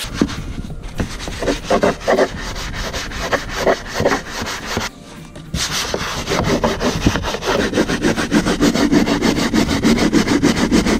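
Stiff-bristled hand brush scrubbing the soapy plastic hull of a Hobie kayak's footwell in rapid back-and-forth strokes, with a brief pause about five seconds in.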